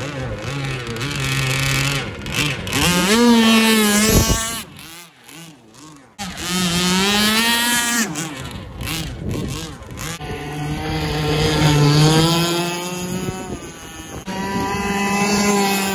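29cc two-stroke gasoline RC boat engines running at high revs, very loud, their pitch rising and falling as the boats accelerate and pass. The sound drops away about four seconds in and comes back abruptly near six seconds.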